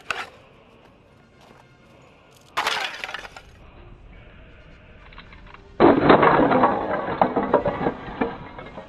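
Stacks of tiles cracking and shattering under blows from a head and hands in a martial-arts breaking demonstration. A short sharp crash comes about two and a half seconds in, then a louder, longer crash of breaking and falling pieces from about six seconds in.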